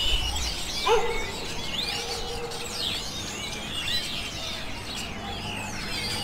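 Many high, overlapping bird chirps and calls with no let-up, and one louder, lower call with a quick upward hook about a second in, over a low background rumble.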